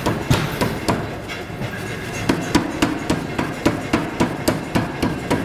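Power trip hammer striking hot metal in a fast, even rhythm of about four blows a second, easing briefly about a second and a half in, then resuming.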